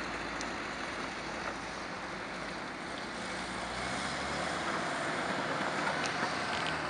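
Vehicles driving over a rough street railway crossing, first a Volkswagen Vanagon van and then a car, their tyre and engine noise over a steady hum of city traffic. It grows a little louder about four seconds in as the car crosses.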